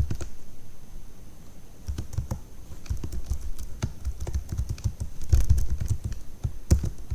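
Typing on a computer keyboard: irregular keystrokes, with a quick run of keys a little past the middle.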